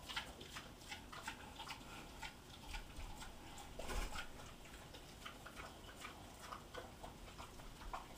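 Two pigs eating from metal bowls: irregular wet chewing and smacking clicks, with snouts now and then knocking the bowls, and one louder knock about four seconds in.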